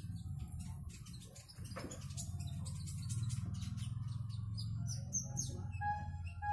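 A kolibri ninja (a small sunbird) calling, with short high chirps and quick sweeping notes that come thicker in the second half. A loud, steady low hum runs beneath the bird.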